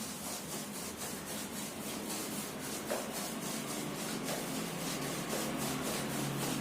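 Rhythmic rubbing strokes, about three a second, as Dr. Fixit waterproofing liquid is worked by hand over a concrete surface, with a steady low hum underneath.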